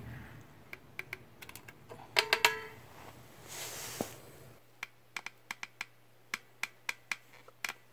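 A run of light, sharp clicks from a caulking gun being worked while it lays a bead of polyurethane construction adhesive. The clicks are scattered at first and come about four a second in the second half.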